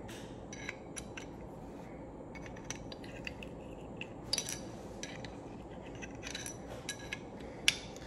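Scattered small metallic clicks and scrapes of a Truglo front sight tool worked inside a steel Glock pistol slide to loosen the front sight screw, with one sharper click near the end.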